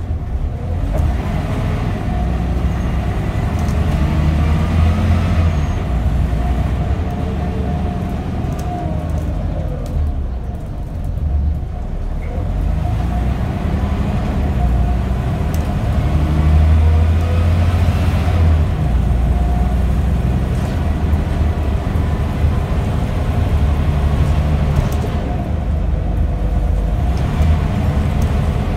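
Scania N94UD OmniDekka double-decker bus heard from inside the passenger saloon: its diesel engine pulls hard under acceleration, rising in pitch and dropping back at each gear change. About ten seconds in it eases off, then it climbs again through the gears.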